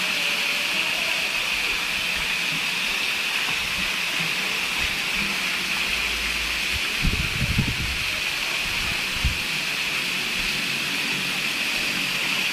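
Steady hiss of water jets spraying into a shallow pool, with a few low thumps a little past the middle.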